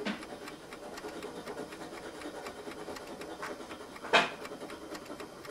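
A small hand tool scratching and rubbing on the wood of an antique writing box in many short strokes, with one sharp click about four seconds in.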